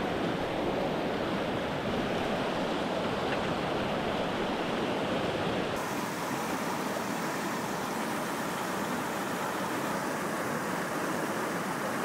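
Rushing water of a fast, icy river current, a steady even rush; its sound shifts slightly about halfway through.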